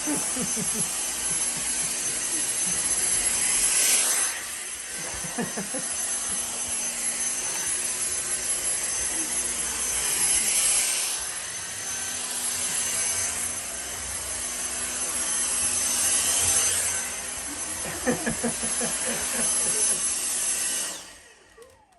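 Vacuum cleaner running with a steady high whine, swelling and easing several times as it is worked across the floor. It is switched off near the end, its motor winding down in a falling tone.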